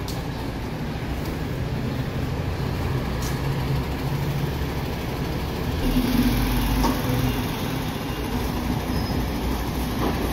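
MAN TGS 26.320 garbage truck's six-cylinder diesel engine running steadily as the truck drives past. A heavier low rumble swells in about six seconds in.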